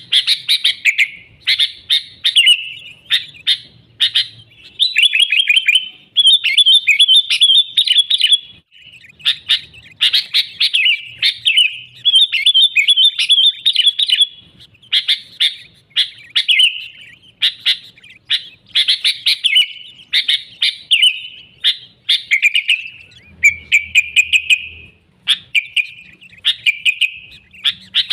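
Sooty-headed bulbul (kutilang) in full, busy song: quick bubbly chattering phrases of half a second to two seconds, repeated one after another with short gaps.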